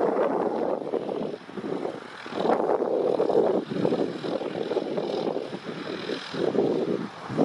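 Wind buffeting the microphone: a rushing noise that swells and drops in irregular gusts.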